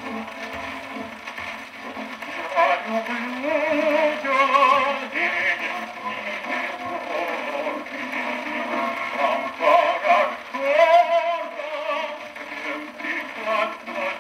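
Wind-up 1938 gramophone playing a 78 rpm record: a singer with accompaniment, thin and narrow in tone with no bass, over steady surface hiss and light crackle.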